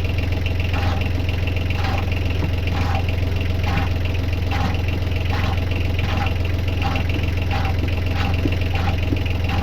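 Boat's inboard engine idling with a steady low hum and a faint regular tick about once a second.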